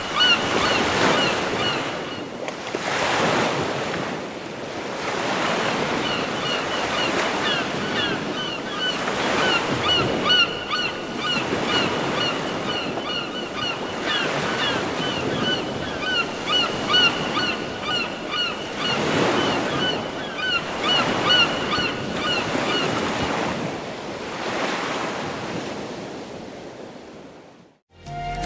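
Samsung Galaxy S III ringtone made of recorded ocean surf: waves swelling and washing every few seconds, with many short, repeated bird calls over them. The tone fades out near the end.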